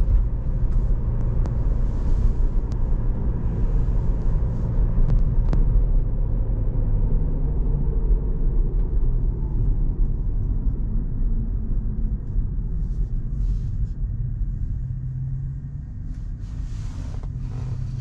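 Steady low road and tyre rumble heard inside the cabin of a moving Tesla Model 3, an electric car with no engine note. It eases a little near the end.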